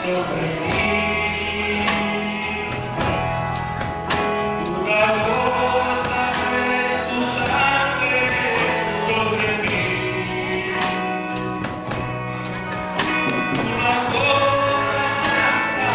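Spanish-language Christian praise song: singing over a band with sustained bass and a steady drum beat.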